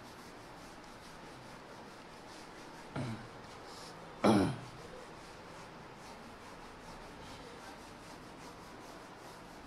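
Faint steady room hiss, broken by two short throat sounds from a man: a weak one about three seconds in, then a louder throat-clearing a second later that falls in pitch.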